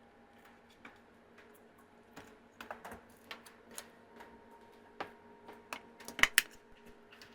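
Irregular plastic clicks and light knocks as a small circuit board is fitted back into its plastic case, ending in two sharp snaps in quick succession a little after six seconds in, like the case clipping shut.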